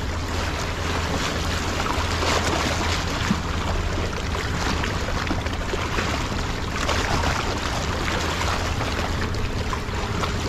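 Small harbour waves washing and lapping over shoreline rocks, with wind rumbling on the microphone; the wash swells louder about two seconds in and again about seven seconds in.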